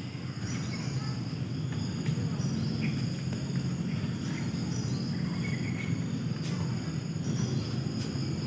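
Wetland ambience: insects, crickets among them, chirping in a steady high-pitched drone with a fast pulsing note, over a steady low rumble, with a few short chirps scattered through.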